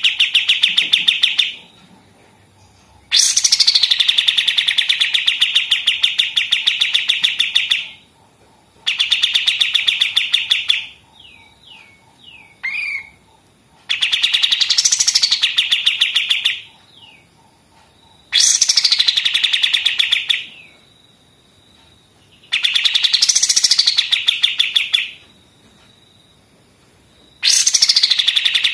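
A kapas tembak songbird singing in repeated bursts of very fast, staccato machine-gun-like trills, each two to five seconds long and opening with a falling sweep. Between the bursts come a few short, falling whistled notes.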